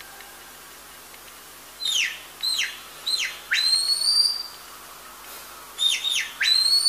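Sheepdog handler's whistle commands to a working border collie: a run of short, steeply falling whistle notes ending in a longer rising note held high, then the same pattern again near the end.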